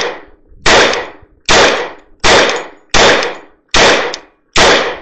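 Glock 21 Gen 3 pistol firing .45 ACP in a steady string of seven shots, about one every 0.8 seconds, each report ringing out briefly before the next.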